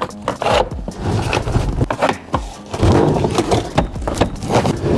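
Scraping, clicks and knocks as a gloved hand works at the side of a car seat's base, fitting the last part of the seat install. Light background music runs underneath.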